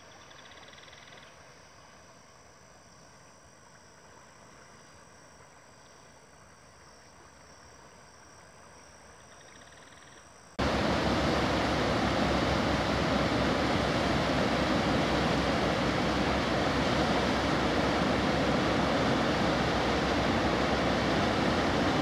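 Flooded Una River rushing through rapids: a loud, steady noise of churning water that cuts in suddenly about ten seconds in, after a faint stretch broken by a couple of brief high trills.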